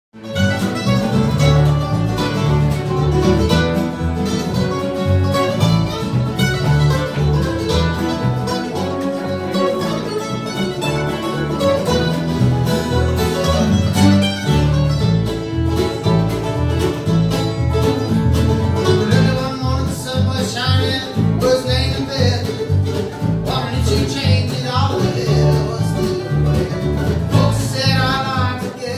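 Live bluegrass band playing: fiddle, mandolin, acoustic guitar and resonator guitar over a plucked upright bass line.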